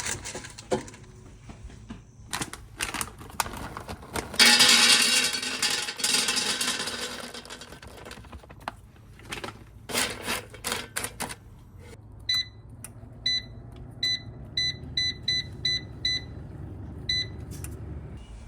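Kitchen handling knocks and clicks with a loud rush of noise a few seconds in, then about ten short electronic beeps as an appliance's control-panel buttons are pressed, fitting an air fryer being set to preheat and roast pistachios.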